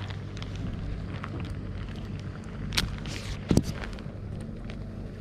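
A steady low mechanical hum, with two sharp knocks a little under a second apart about three seconds in, from the fishing rod and reel being handled close to the microphone.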